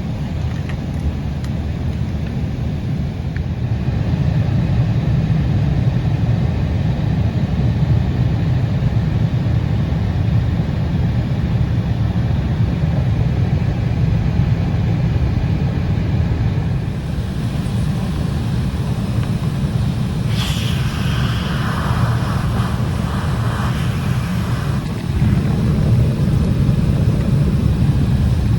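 Embraer 175 jet airliner heard from inside the passenger cabin: a steady, dense rumble of engines and airflow. About two-thirds of the way in the sound turns brighter and hissier for a few seconds, and near the end the rumble swells slightly.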